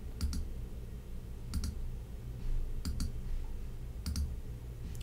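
Computer clicking: about four pairs of short, sharp clicks a little over a second apart, over a low steady hum.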